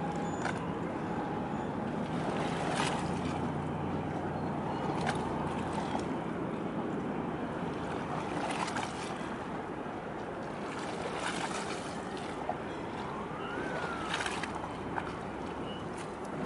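Harbour ambience: a low boat-engine hum over wind and water noise. The hum is strongest in the first six seconds, and a few faint clicks fall across it.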